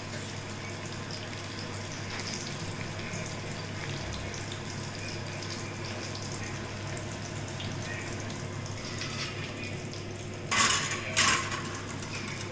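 Kitchen work: a steady hiss with faint scattered clinks, then utensils clattering loudly twice in quick succession near the end.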